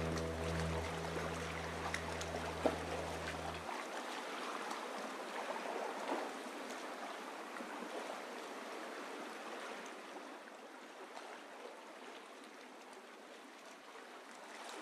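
Water rushing and splashing, slowly fading away. A low steady hum stops about four seconds in.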